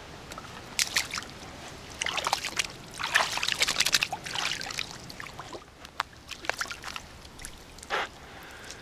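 Small irregular splashes and trickles of water, in a cluster of bursts over the first few seconds, then a few single sharp clicks and drips.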